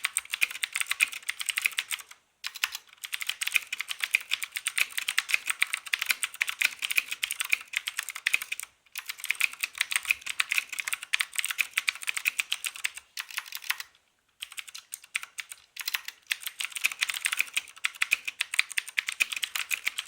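Thermaltake Poseidon mechanical keyboard with Cherry MX Blue switches being typed on fast: dense, rapid clicking in runs of several seconds, with a few short pauses.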